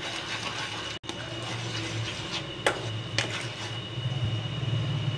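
Peach jam bubbling in a pan as a wooden spatula stirs it, with two sharp knocks of the spatula against the pan about half a second apart a little past the middle. A steady low hum runs underneath.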